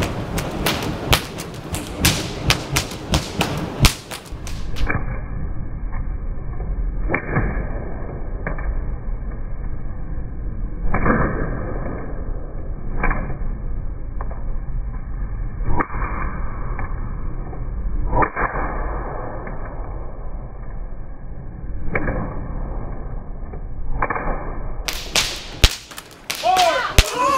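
Fire whips (flaming bullwhips) cracked again and again while being juggled: a fast run of sharp cracks for about five seconds, then sparser, muffled cracks over a low rumble, and another quick run of sharp cracks near the end.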